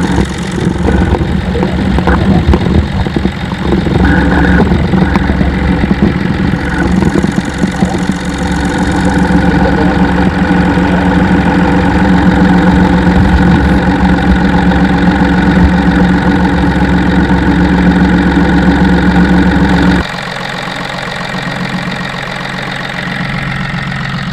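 Alternator bearing on a running three-cylinder diesel engine heard through a mechanic's stethoscope: a steady, smooth running noise with no rattle, a little louder than normal, the sign of slight wear in the alternator bearing. About twenty seconds in it drops suddenly to a quieter steady hum.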